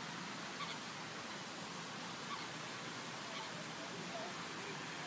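Steady rushing hiss of the Jet d'Eau fountain's water jet and falling spray, with a few faint short high sounds over it.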